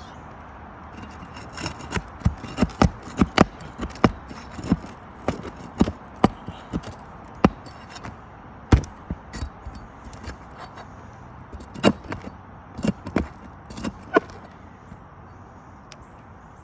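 Nails being pried out from under asphalt shingles: an irregular string of sharp clicks and knocks, thickest from about two to nine seconds in, with a last cluster around twelve to fourteen seconds.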